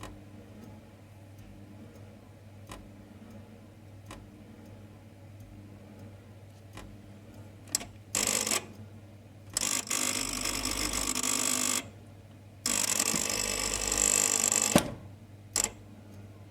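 Ideal C28 Mini combination boiler with a fault, making a loud grinding buzz in three bursts: a short one about eight seconds in, then two of about two seconds each. Under them run a steady low hum and faint ticks about every second and a half. The owner likens the noise to a snagged PC fan and places it near the three-way diverter valve, gas valve and hot-water flow switch.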